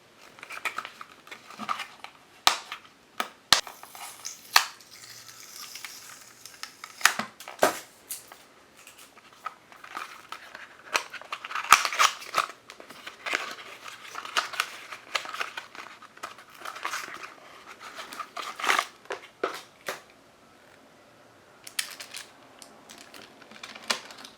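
A toy train's box and plastic packaging being opened and handled: crinkling and rustling with scattered sharp clicks and taps. It goes quiet for a couple of seconds toward the end.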